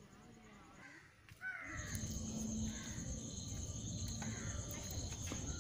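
Bajaj Sunny's small two-stroke engine catching on a kick-start about a second and a half in, then running steadily, its first start after carburettor cleaning. A crow caws just before the engine catches.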